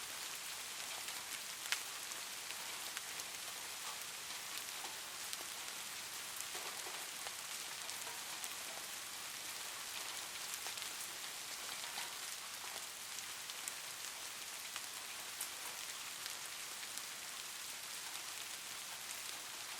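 Steady rain falling on a surface, an even hiss with scattered individual drops ticking.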